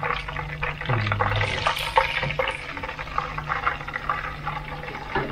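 Chicken drumsticks deep-frying in hot oil: a steady sizzle full of small crackling pops.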